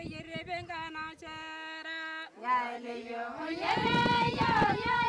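Women singing: a long held note about a second in, a lower note after it, then several voices singing together, louder, near the end.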